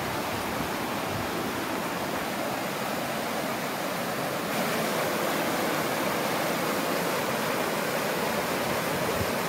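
Floodwater from a swollen stream rushing steadily, a constant noise of moving water that gets slightly louder about halfway through.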